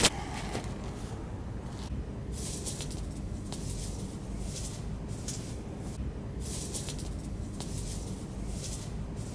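Short scratchy rustles, one every second or so, from a small bird flapping and struggling in nylon anti-bird netting as the mesh around it is cut.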